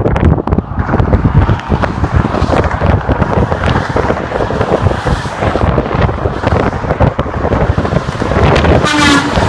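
Wind buffeting the microphone over passing highway traffic; about nine seconds in, a vehicle horn gives one short blast.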